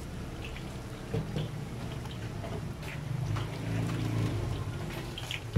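Battered banana fritters deep-frying in a wok of hot oil, sizzling with scattered small crackles, over a low steady hum.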